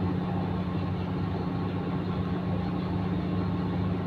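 Ship's engines running with a steady low drone.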